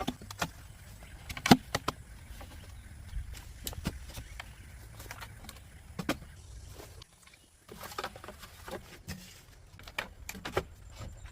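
Scattered sharp knocks and clicks over a low rumble, with one loud knock about a second and a half in; the sound briefly drops out about seven seconds in.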